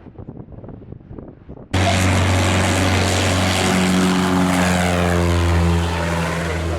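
Propeller-driven light aircraft at full power on its take-off run, passing close. The engine cuts in suddenly about two seconds in, and its note drops in pitch as it goes by.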